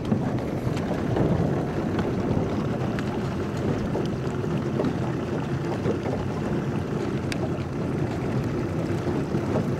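Steady rushing and splashing of water as a large school of redfish churns the surface, with a few small splashes standing out.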